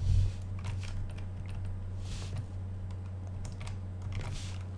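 Computer keyboard typing: a few scattered keystrokes as code is entered, over a steady low electrical hum.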